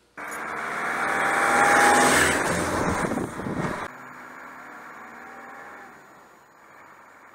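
A 4x4 driving past on a gravel road: tyre and engine noise swell to a peak about two seconds in and cut off sharply just before four seconds. A quieter, steady driving noise follows and fades out near the end.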